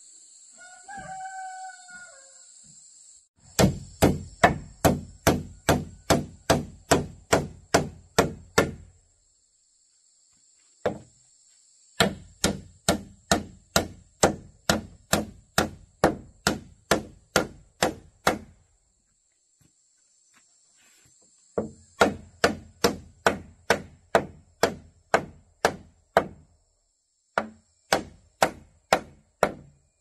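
A claw hammer striking upward into the underside of a wooden plank floor, about two to three blows a second in four runs with short pauses. A rooster crows briefly near the start, over a steady high insect hum.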